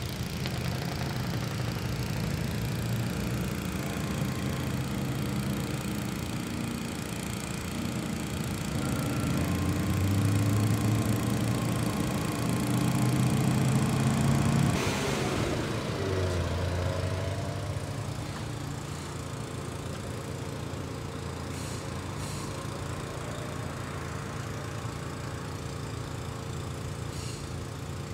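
An engine running steadily with a low hum. It grows louder for a few seconds near the middle, then drops off suddenly about halfway through and goes on more quietly.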